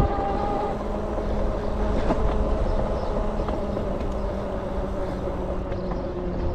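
Fat-tire e-bike on the move, its VeeMoto E-Huntsman 20×4 tires rolling on the trail: a steady low rumble of tire and wind noise with steady whining tones from the drive, and a light knock about two seconds in.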